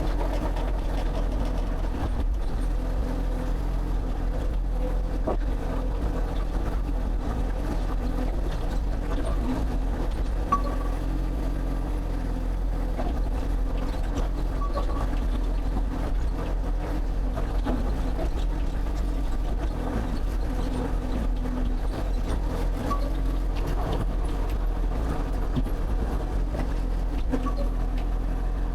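Excavator's diesel engine running at a steady, unchanging level.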